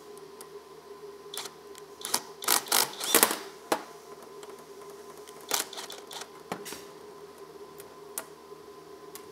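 A two-jaw bearing puller, driven by a power driver, pulls a bearing off an electric motor's armature shaft: a cluster of short, loud mechanical bursts about two to three seconds in. Scattered metal clinks and knocks follow as the armature and the puller are handled and set down on the bench.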